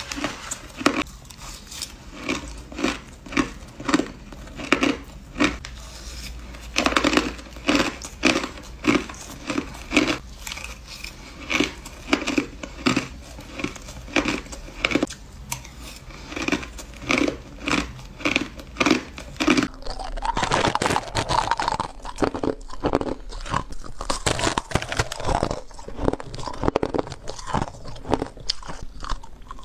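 Hard crushed ice being bitten and chewed with sharp, crisp crunches, about one or two a second. About two-thirds of the way through it turns into denser, almost continuous crunching.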